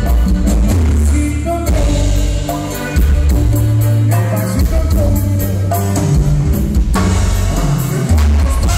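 Live Latin band playing through the PA: accordion, bass guitar, congas and drum kit, with a heavy bass line and a steady beat.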